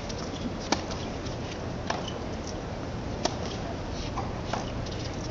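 Tennis rally: four sharp pops of the ball struck by the players' rackets, evenly spaced about a second and a quarter apart, over a steady low murmur of the crowd in the stands.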